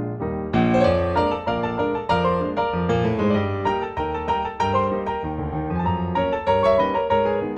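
Background piano music: a light, steady melody of single notes over a repeating accompaniment.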